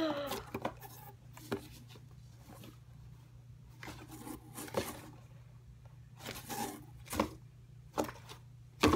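Rustling and handling noises as clothing is pulled out of a cardboard parcel and held up, with a few sharp snaps, the loudest near the end, over a steady low hum.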